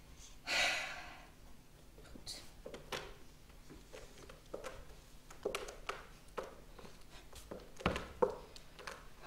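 Props being handled on a theatre stage: a short hissing rush about half a second in, then a scatter of light taps and small knocks, with two louder knocks near the end.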